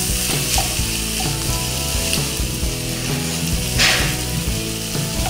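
Diced chicken and ground spice paste sizzling in a wok over medium heat, stirred with a wooden spatula that scrapes the pan; one louder stroke a little before four seconds in.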